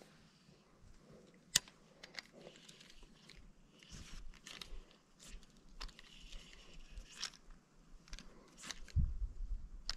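Scattered small clicks and rustles, with one sharp click about a second and a half in and a low rumble near the end.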